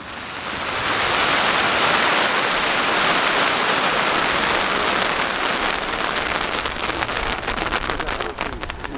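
Crowd applause that swells over about a second after the last fireworks burst, holds steady, then thins out into scattered separate claps near the end.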